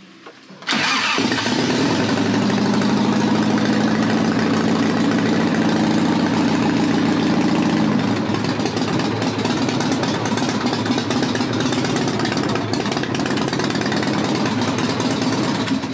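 Harley-Davidson Evolution V-twin firing up about a second in and running steadily, then shut off at the end. This is its first start after a top-end rebuild.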